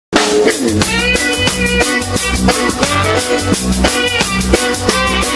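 A live band playing a song: a drum kit keeps a steady beat under bass and pitched instruments.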